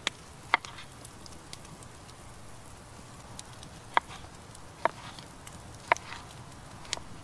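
Wood campfire crackling, with about six sharp pops at irregular intervals.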